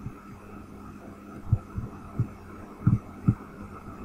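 Steady electrical mains hum with a handful of dull, low thumps at uneven intervals, starting about a second and a half in, two of them close together near the end.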